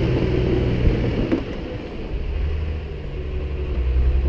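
Excavator's diesel engine running steadily at a low pitch. A brief knock about a second in.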